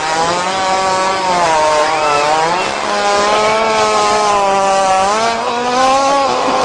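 A long, buzzing fart that wavers up and down in pitch, breaking off briefly a couple of times.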